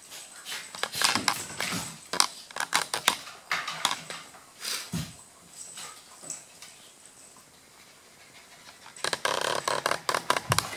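A Maltese and a Golden Retriever play-wrestling on a wooden floor: claws clicking and scrabbling on the boards and bodies scuffling. A busier, louder stretch of scuffling comes near the end.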